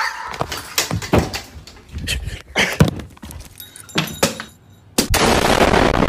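A run of sharp knocks and thumps, then about five seconds in a sudden loud explosion: a dense blast of noise lasting about a second and a half that cuts off abruptly.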